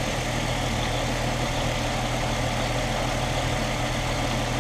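2005 Ford Mustang's 4.0-litre V6 engine idling steadily, running on a newly fitted alternator.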